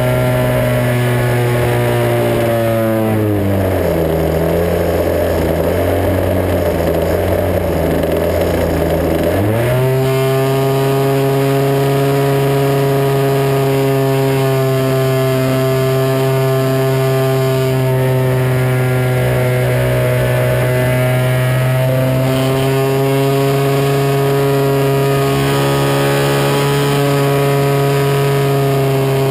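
The engine and propeller of an Extra 260 radio-controlled model aerobatic plane, heard from on board. The engine runs steadily, then its pitch falls a few seconds in as it throttles back. It runs low with a rushing wind noise for several seconds, climbs sharply back up at about ten seconds, and holds steady.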